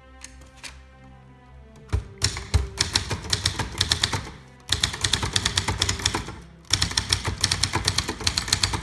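Fast typing on a 1963 Brother Valiant manual typewriter: a rapid run of typebar strikes starts about two seconds in and goes on with two short breaks, over soft background music.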